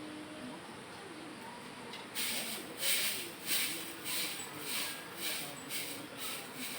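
Broom sweeping, about two swishes a second, starting about two seconds in.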